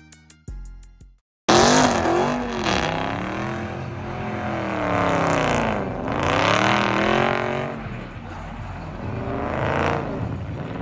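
Music cuts off about a second in; after a brief silence a car engine revs hard and continuously while spinning donuts, its pitch sweeping up and down as the car circles, over the hiss and squeal of spinning tyres.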